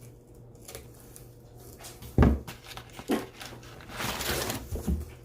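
Books and packing paper being handled: a soft thump about two seconds in, the loudest sound, a smaller knock a second later, then a brief rustle of paper around four seconds in and one more light knock.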